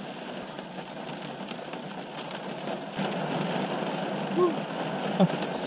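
Rain falling on a parked car's roof and windows, heard from inside the cabin: a steady hiss with scattered drop ticks, a little louder about halfway through.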